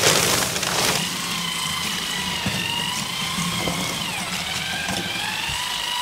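Dry self-leveling mortar powder pouring into a tub of water with a loud rush, then an electric drill with a paddle mixer starts churning the slurry, its motor whining steadily and dipping in pitch briefly about four seconds in as it slows under load.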